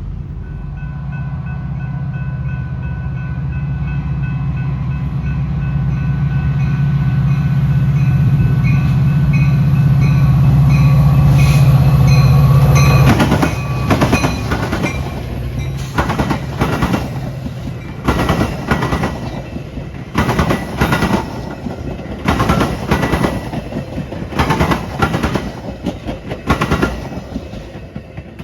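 Freight train passing: diesel locomotive engines grow louder for about the first 13 seconds. The cars then roll by, with wheels clacking over rail joints in pairs every couple of seconds.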